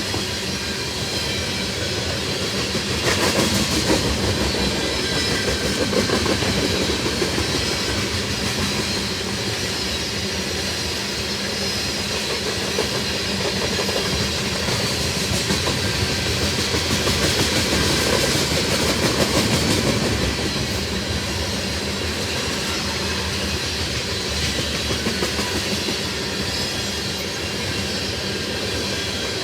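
Long freight train of railroad tank cars rolling past, with a steady rumble and clickety-clack of wheels over the rail joints. It swells a little louder twice along the way.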